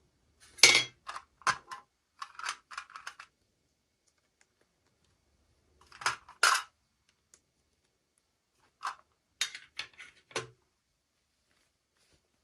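Clicks and light clatter of small hard items being handled, most likely miniature toy pieces and their packaging, in three short flurries with pauses between.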